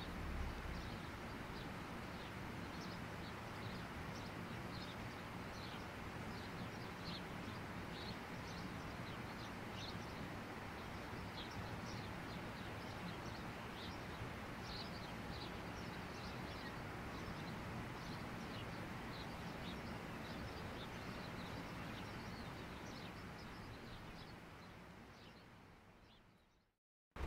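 Outdoor rural ambience: a steady background hiss with small birds chirping sporadically, fading out near the end.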